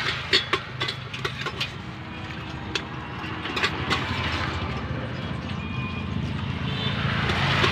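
A motor vehicle engine running steadily in the background, a little louder near the end. Over it come scattered sharp clicks and taps from snack-making: a hand working in a steel bucket and a spoon scooping the mix onto a leaf plate.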